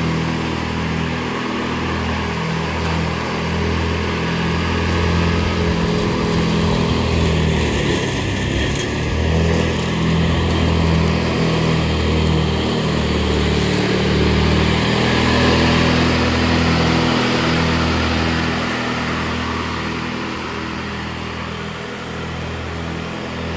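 Riding lawn mower engine running steadily under load, growing a little louder through the middle and easing off toward the end.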